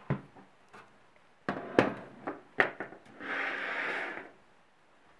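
A desktop PC's metal case being handled: several sharp clicks and knocks, then about a second of scraping as the case slides across a wooden table.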